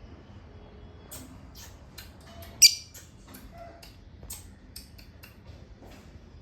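Pet birds giving short, high-pitched chirps and squeaks, scattered through, with one loud squawk about two and a half seconds in.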